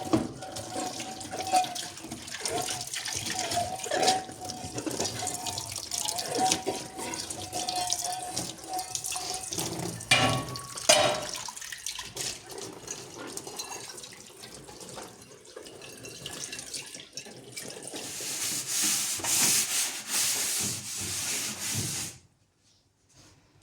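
Running water with scattered knocks and clatter. The flow gets louder near the end and then stops abruptly.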